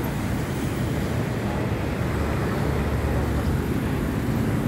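Steady low rumble of city traffic, with no single sound standing out.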